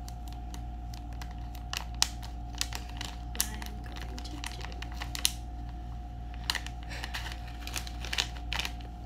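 Crinkling and crackling of a plastic and foil zip-top pouch of dried flowers being handled and worked open, with sharp irregular clicks scattered throughout. A steady hum runs underneath.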